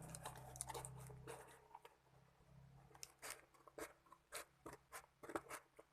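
Faint, irregular crackling and crinkling of parcel packaging being handled and opened, a scatter of short sharp crackles.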